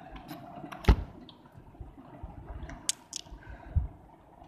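Raindrops tapping and dripping irregularly on a window pane and sill during a downpour, with a sharp knock about a second in and a dull thump near the end.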